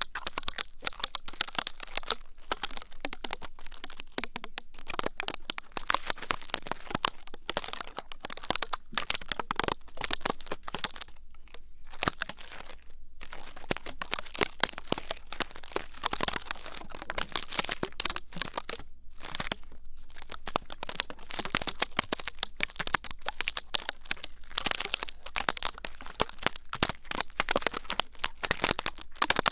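Ear-cleaning ASMR: close, dense crackling and scratching, a run of small clicks and scrapes, with a couple of brief pauses near the middle.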